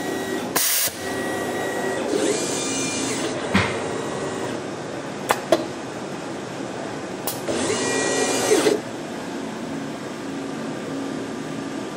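Desktop soldering robot running a soldering cycle: a short blast of air about half a second in as the iron tip is blown clean, then the whir of its axis motors moving the head, twice, with a few sharp clicks over a steady machine hum.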